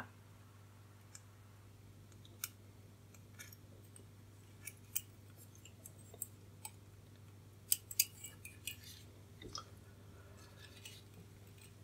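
Faint scattered clicks and light ticks of a resistor's wire leads being pushed through a circuit board and the board being handled and tilted over, over a low steady hum.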